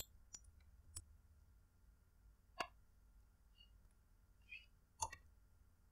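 Near silence, broken by a handful of faint, sharp clicks spaced a second or more apart, from working a computer's mouse and keys.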